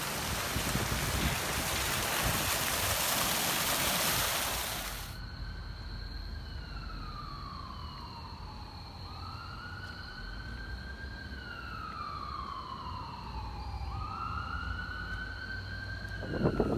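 A steady rushing hiss that stops abruptly about five seconds in, followed by an emergency vehicle siren wailing: its pitch rises quickly and falls slowly in repeated cycles of about three and a half seconds, over a faint steady high tone.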